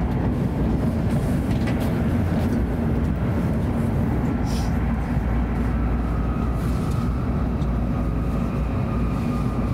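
Hokuriku Shinkansen train running steadily at speed, heard from inside the passenger cabin: an even low rumble with a faint steady whine above it.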